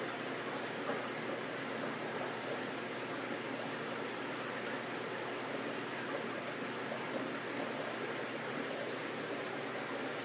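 Steady rushing and trickling of water circulating in a reef aquarium.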